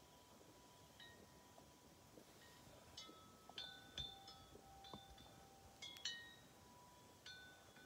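Wind chime tinkling faintly: scattered struck notes of several different pitches, each ringing on, coming more often from about three seconds in.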